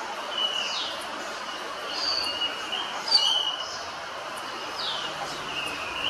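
Common hill myna calling: a few short whistles and downward-sweeping whistled notes, the loudest a sharp whistle about three seconds in, over a steady background hiss.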